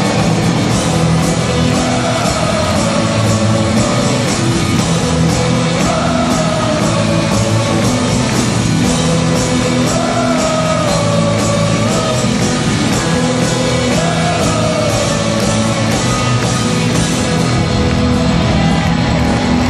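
Live rock band playing a driving song in a large arena: electric guitars and drums keeping a steady beat, with a sung melody repeating every few seconds over it.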